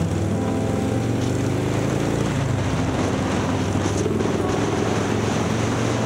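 A vehicle engine running, its pitch shifting up and down, over a steady rushing noise.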